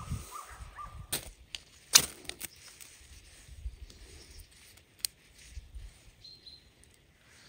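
Hunting dogs baying in the distance for about the first second, over a low rumble of wind on the microphone. Then a few sharp knocks, the loudest about two seconds in.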